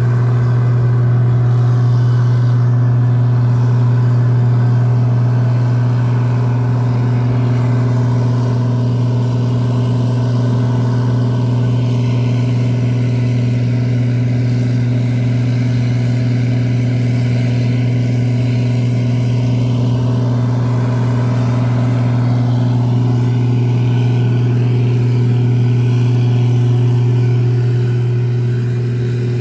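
Aircraft ground power unit's engine running steadily, a constant low hum with a few overtones above it and no change in speed.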